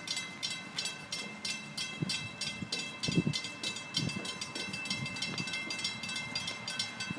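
Railroad grade-crossing warning bell ringing in rapid, evenly spaced strikes while the crossing gates come down; it cuts off at the very end. A few low thumps sound under it about two to four seconds in.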